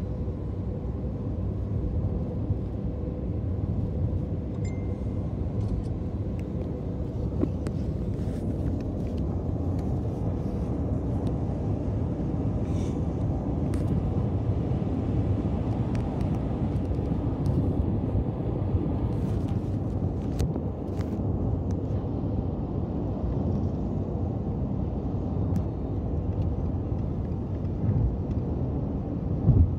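Steady low rumble of a car's cabin noise, heard from inside the car, with a few faint clicks and a short bump near the end.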